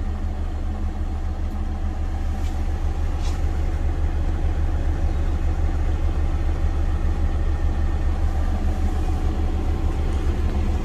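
2022 Peterbilt 389's Cummins X15 inline-six diesel idling, heard from inside the cab as a steady low drone.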